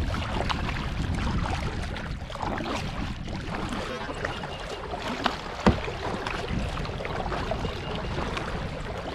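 Water splashing and lapping around a kayak on the move, over a steady low rumble of wind on the microphone, with a sharp knock about five and a half seconds in.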